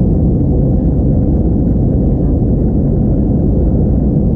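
Steady low roar inside the cabin of an Airbus A321-231 climbing out after takeoff: the IAE V2500 turbofans and air rushing past the fuselage, even and unbroken.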